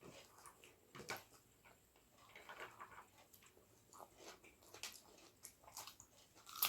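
Faint chewing and wet mouth clicks of a person eating, irregular and scattered, with one sharper click near the end.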